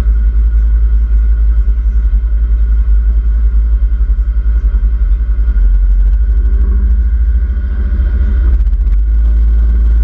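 Side-by-side utility vehicle driving across sand, its engine running steadily under a heavy low rumble of wind on the microphone of the open cab.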